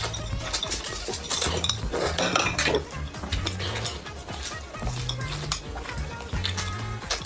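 Eating utensils clicking and scraping against a bowl of noodles, many short clicks in quick succession, over background music with low, steadily changing bass notes.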